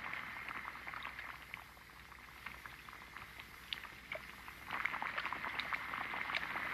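Soft crackling with many scattered small clicks. It fades a little about two seconds in and grows louder again near the end.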